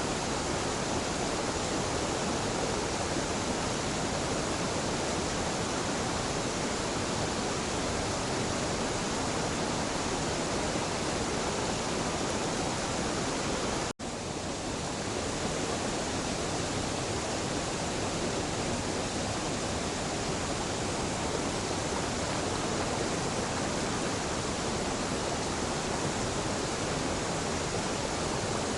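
Waterfall at the confluence of the Katashina River and the Idosawa stream, rushing steadily. The sound drops out for a moment about halfway through, where the recording is cut, then carries on as before.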